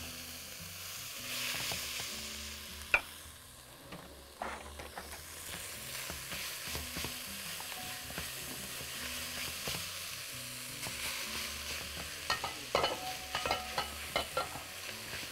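Cooked white rice and chopped onion sizzling in olive oil in a pot while being stirred with a spatula. There is a steady frying hiss, and quick clicks and scrapes of the spatula against the pot, more of them near the end.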